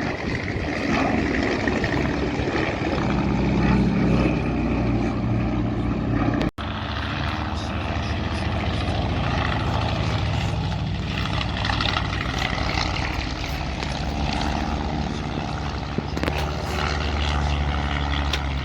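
Propeller-driven aircraft's engine running steadily, with a momentary break about six and a half seconds in.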